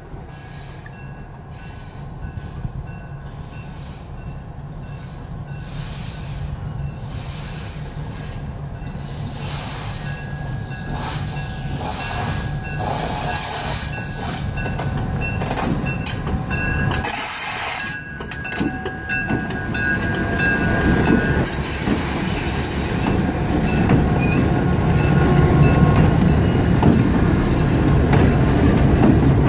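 Boston & Maine 4266, an EMD F-unit diesel locomotive pulling passenger cars, approaching and passing close by. The diesel engine's rumble and the wheels on the rails grow steadily louder and are loudest as the locomotive goes by near the end.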